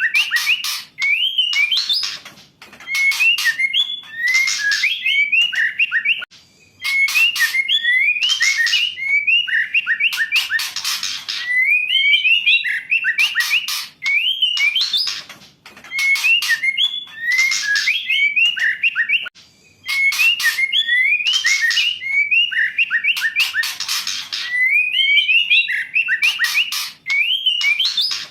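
Female white-rumped shama calling in repeated phrases, about one every four seconds: a few quick rising whistled notes followed by harsh, raspy calls. This is the female call used as a lure to get a male shama singing.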